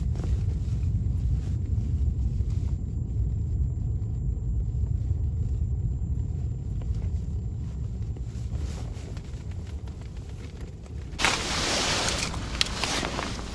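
Strong gusty wind buffeting the microphone, a steady low rumble. About eleven seconds in it changes abruptly to a louder, brighter hiss.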